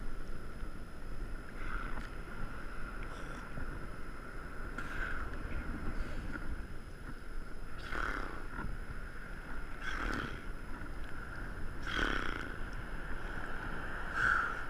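Ocean water sloshing and slapping against a waterproof camera at the surface, with a splash every two to three seconds over a steady wash.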